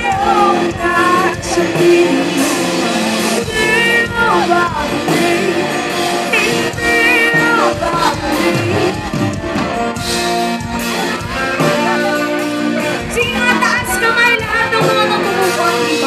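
Live band playing, with a female lead singer's voice over guitar and the rest of the band.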